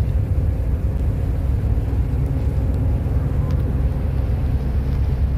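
Moving harbour ferry's steady low rumble: engine drone mixed with wind on the microphone and the wash of water along the hull.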